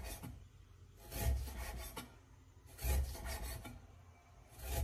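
A large kitchen knife slicing through half-lean, half-fat pork on a thick wooden chopping block. There are three strokes about a second and a half apart, each a short scraping draw through the meat that ends in a dull knock on the wood.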